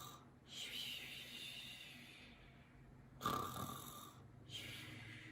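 A woman making pretend snoring sounds: slow, breathy snores drawn in and out, the loudest starting sharply about three seconds in.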